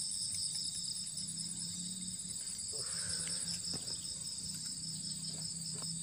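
Insects chirring steadily in layered high trills, one pulsing very rapidly, over a faint low steady hum.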